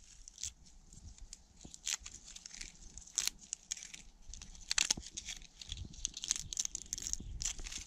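Papery outer bark of a birch tree being torn and peeled off by hand: a dense run of dry crackling and tearing, with louder snaps now and then.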